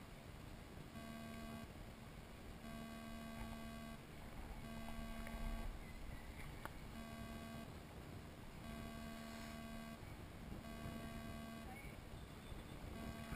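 Faint buzzing tone that keeps switching on and off every second or two, over a low, even background noise.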